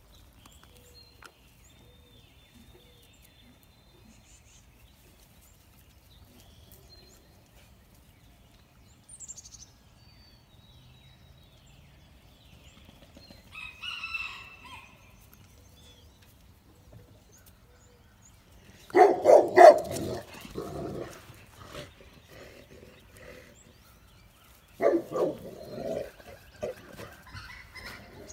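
Rooster crowing twice, loud, about two-thirds of the way through and again near the end. Before that, faint chirps of small birds and a brief higher call about halfway through.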